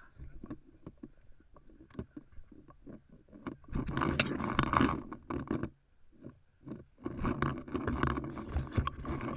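Footsteps on concrete, then from about four seconds in a loud rustling scrape as nylon safety netting brushes over the head-mounted camera. More rustling and handling noise follows from about seven seconds.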